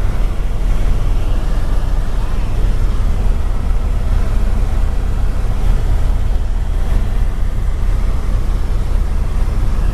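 Helicopter in flight, a loud, steady low drone with no break.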